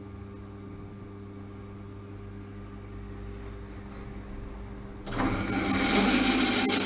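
Bench drill press running with a steady hum, then about five seconds in the bit bites into stainless steel and a loud high-pitched squeal of cutting begins and carries on.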